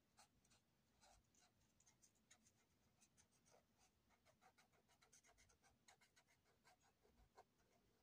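Faint scratching of a felt-tip marker's tip on the paper of a colouring book, in quick short colouring strokes, a few a second.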